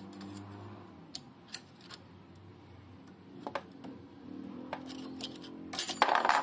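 Screwdriver clicking and scraping against a plastic baffle on an angle grinder armature shaft as it is pried off. Near the end, a loud rattling clatter as the baffle pops free and drops onto the wooden bench.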